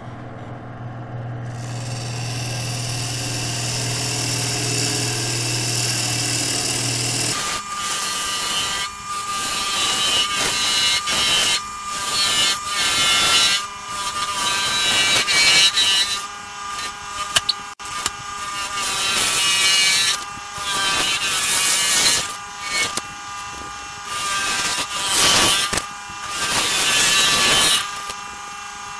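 Wood lathe running with a steady hum, a glued-up canary wood and bloodwood blank spinning on it. From about seven seconds in, a bowl gouge cuts into the spinning wood in repeated passes with short pauses between them.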